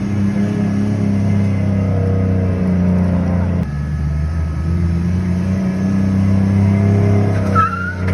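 Nissan 370Z's 3.7-litre V6 running at a fairly steady engine speed, with a deep, even exhaust note that dips briefly partway through. A short high squeak comes near the end.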